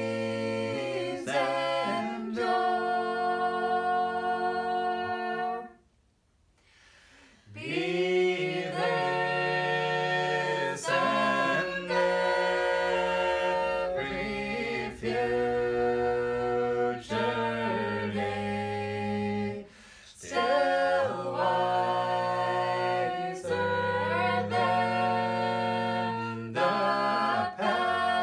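Four voices, two women and two men, singing a shape-note hymn a cappella in four-part harmony, in long held chords. The singing breaks off for about two seconds some six seconds in, and dips briefly again near twenty seconds.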